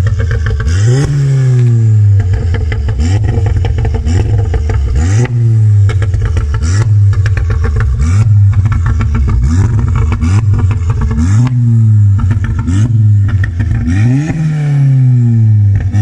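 Volkswagen Golf 7.5 GTI's turbocharged 2.0-litre four-cylinder free-revved again and again, about eight quick blips, through an Armytrix turboback exhaust with the particulate filter and catalytic converter removed. Each rev falls back with pops and crackles on the overrun from a burble/crackle tune.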